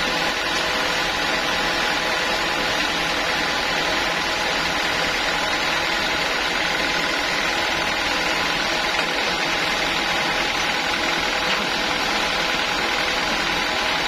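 Band sawmill running steadily with no cut under way, a constant machine drone with several steady tones and no rise or fall in level.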